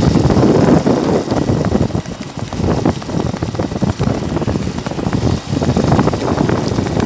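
A running engine with wind buffeting the microphone, mixed with the irregular beats of a horse's hooves trotting on a dirt track.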